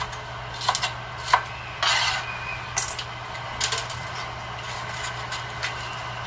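Knife cutting bell pepper on a plastic cutting board: irregular knocks and taps, the sharpest about a second and a half in, with a short scraping rustle around two seconds.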